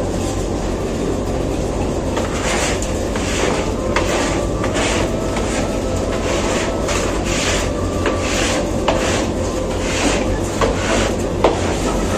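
Repeated scraping strokes, about one or two a second, as feathers and litter are scraped up from the floor under hen cages. Under them runs a steady hum of poultry-house machinery.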